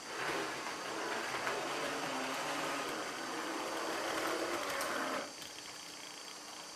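Gauge 0m model freight train running on its track: a steady mechanical running sound with a low hum. It starts suddenly and drops away after about five seconds.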